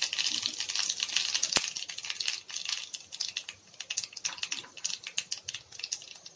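Mustard, fenugreek and cumin seeds spluttering in hot oil in a kadai: rapid crackling pops over a frying hiss, dense at first and thinning out after about two seconds, with one sharper pop about a second and a half in. The popping is the sign that the tempering is done and the oil is hot enough.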